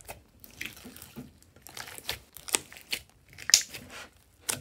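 Hands squishing and pressing clear glitter slime mixed with small beads, making irregular crackles and pops as air pockets in the slime are squeezed; the loudest pops come about three and a half and four and a half seconds in.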